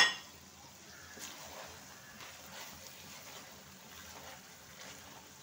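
A sharp metal clank with a brief ringing right at the start, something struck against the steel cooking pot. Then the chicken curry sizzles faintly on low heat.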